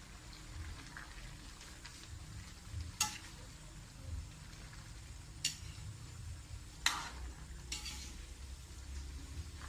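Metal ladle stirring vegetables in a metal wok, clinking sharply against the pan about four times, over a faint sizzling simmer.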